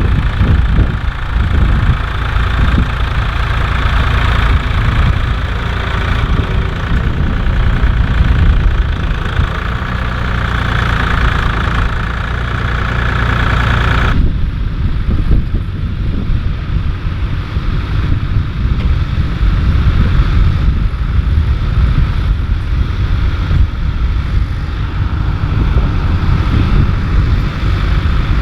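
Farm tractor diesel engine running steadily under load while ploughing, a deep continuous rumble. About halfway through, the sound changes abruptly, its upper part suddenly dropping away.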